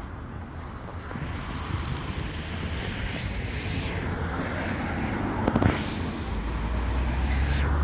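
Road traffic: vehicles passing one after another, their tyre and engine noise swelling and fading twice, with a low engine rumble building near the end.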